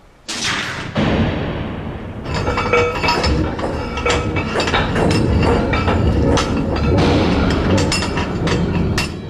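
A safe's combination lock mechanism, dramatized for the screen: a sudden metallic clank, then a dense run of clicks and clanks as its gears and tumblers turn, with music underneath.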